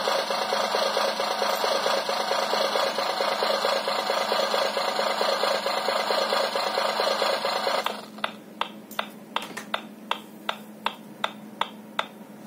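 An RC sound module plays a simulated engine running at idle through its small speaker. The engine sound cuts off suddenly about eight seconds in and is followed by a run of evenly spaced clicks, roughly two and a half a second.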